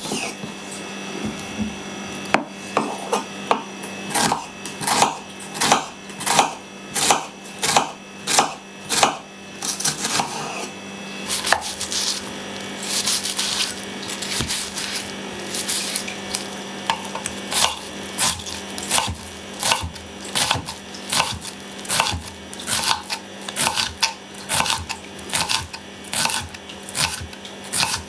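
Kitchen knife slicing and dicing a red onion on a wooden cutting board: crisp cuts through the onion and the blade knocking on the wood, about two strokes a second.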